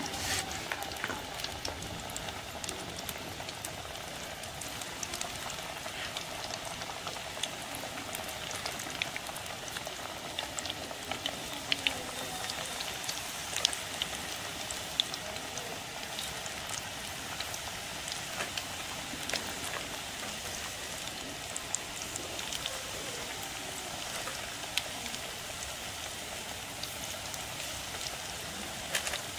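Battered spinach pakoras deep-frying in hot oil in a frying pan: a steady sizzle with constant crackling, and a few louder pops around the middle as more battered leaves go into the oil.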